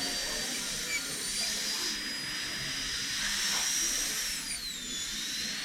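High-speed dental handpiece running with a steady high whine over a hiss of air, its pitch dipping and recovering about five seconds in.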